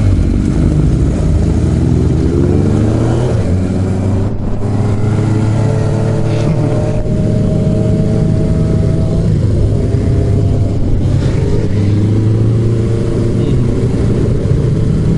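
Motorcycle engine under way, rising in pitch as it accelerates in the first few seconds and again in the middle, then holding a steady pitch, with rushing wind noise over it.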